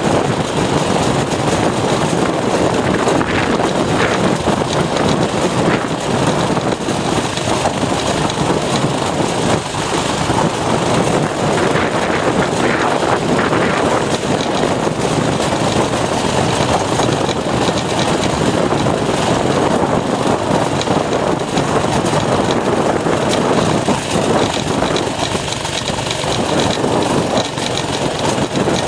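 Mini bike's small engine running steadily under throttle while the bike is ridden over a grass trail.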